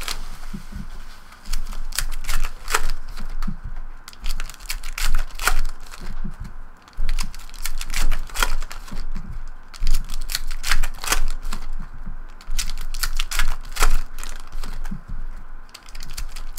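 Trading card packs being handled: cards squared and set down onto a stack on a table, and packs opened, giving irregular sharp taps and clicks.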